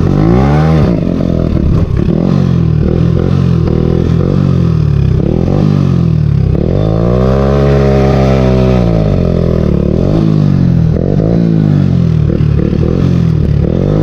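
Hero Honda motorcycle's single-cylinder engine running loud through an M4 aftermarket exhaust with the dB killer removed, revving up and down as it is ridden. A long rev climbs and falls back about seven to nine seconds in.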